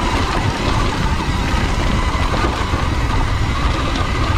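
Sur-Ron electric dirt bike riding down a dirt trail: a steady electric-drive whine over the low rumble of wind and tyres on the dirt.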